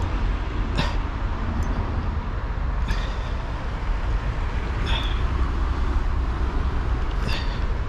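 Steady low rumbling background noise, with brief sweeping swishes about every two seconds.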